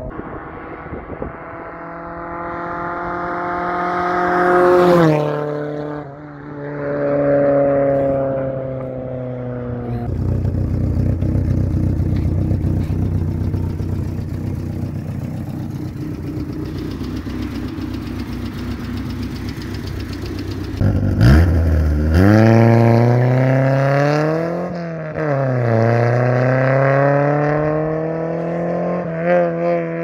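Chevrolet Corsa 1.6 four-cylinder engine on an open dual exhaust, driven past and revved hard. The revs climb and drop sharply about five seconds in, then give way to a rough low rumble as the car comes close. Near the end it accelerates away, the revs rising, dropping once and rising again.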